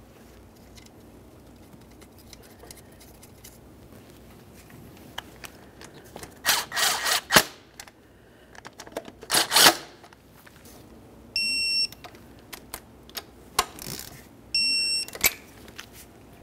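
Two runs of ratchet clicking as the fuel rail's two 12 mm nuts are tightened. Each run is followed a little later by a short electronic beep from a digital torque wrench, the signal that the nut has reached its set torque of 16 foot pounds.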